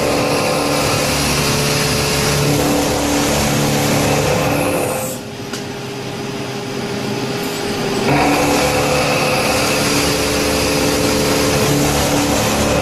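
CNC machine running and cutting: a loud, steady, hissing machining noise over a steady hum. About five seconds in the noise drops away for roughly three seconds, then the cutting resumes at full level.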